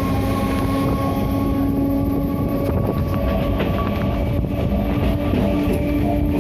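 Train pulling out of a station: a steady low rumble with several held humming tones from the locomotive, and a few short clanks of wheels and couplings about three seconds in.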